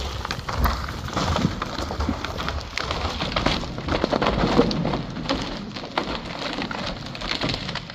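A fir tree crashing down: a dense crackle of snapping branches and cracking wood with falling debris. The fallers think the trunk split from end to end as it went over.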